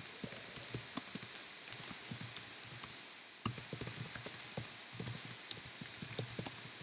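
Quick typing on a computer keyboard, a fast uneven run of key clicks with a pause of about a second near the middle.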